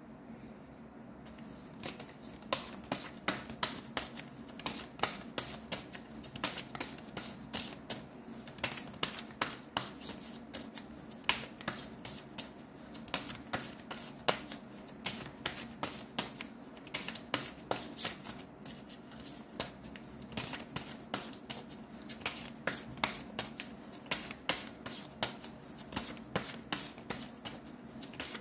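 A tarot deck being shuffled by hand: a long run of quick, irregular card clicks and flutters, starting about two seconds in, over a faint steady hum.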